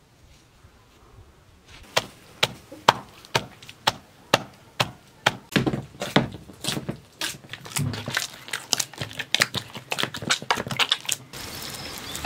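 A run of sharp knocks, about two a second at first and then faster and more crowded. About a second before the end they give way to a steady sizzle of oil as a flatbread fries in a pan.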